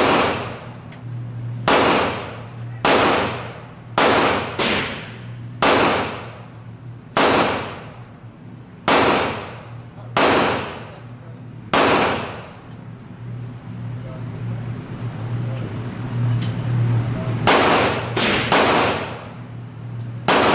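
Gunshots echoing in an indoor shooting range, fired from the neighbouring lanes, about one a second at irregular intervals, with a pause of several seconds past the middle and then a quick run of three. A steady low hum runs beneath them.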